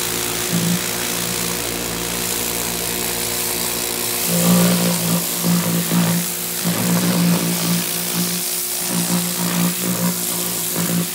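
Sun Joe SPX2688-MAX electric pressure washer running, with a steady motor and pump hum under the hiss of the water spray. From about four seconds in the sound turns louder and uneven as the spray works over a surface.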